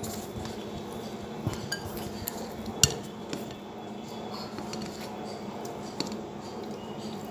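A glass mixing bowl holding fish pieces being handled, giving scattered light knocks and clinks of dishware, the sharpest about three seconds in.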